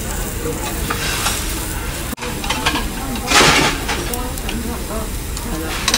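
Busy restaurant background: distant chatter over a steady hiss. A short loud rush of noise comes about halfway through.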